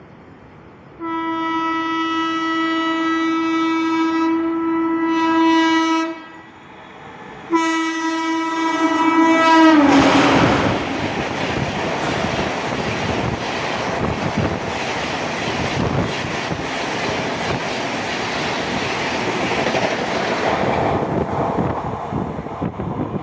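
Indian express train's locomotive horn sounding twice, a long steady blast and then a shorter one that drops in pitch as the engine goes by, followed by the loud rush and rail clatter of the train passing at high speed, fading near the end.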